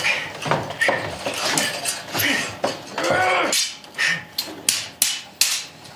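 A string of sharp, irregular knocks and clacks, two or three a second, with a brief pitched cry about three seconds in.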